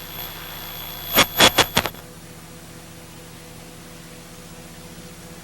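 Four or five loud, sudden noises about a second in. Then the sound cuts off abruptly at about two seconds, leaving only a steady low electrical hum and hiss: the recording's programme audio has ended.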